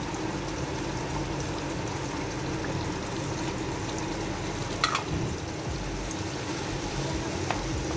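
Onion-tomato masala frying in hot oil in a pan, a steady sizzle, as a watery spice mix is poured in and stirred through with a wooden spatula. A light tick about five seconds in.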